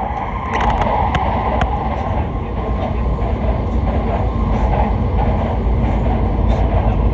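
Hokuriku Shinkansen train running, heard from inside the passenger cabin: a steady rumble with a few light clicks about a second in.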